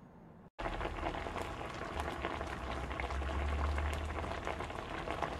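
Hot oil sizzling and crackling with many fine pops, as in deep-frying, cutting in abruptly about half a second in, with a low hum underneath.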